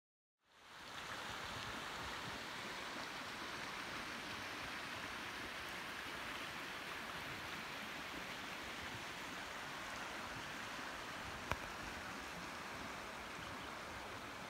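The Middle Fork of the Gila River rushing steadily, an even rush of water that fades in at the start. A single sharp click sounds once near the end.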